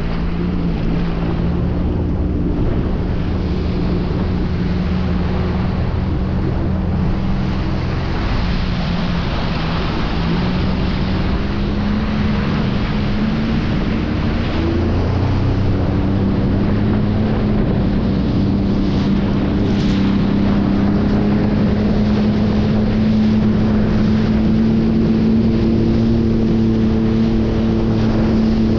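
Sea-Doo GTI personal watercraft engine running at speed, its pitch climbing slowly, over the steady rush of water and wind on the microphone.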